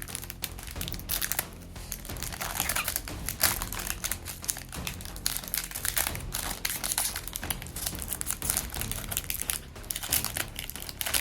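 The foil wrapper of a Topps Chrome trading-card pack crinkling irregularly as it is torn open and handled by hand.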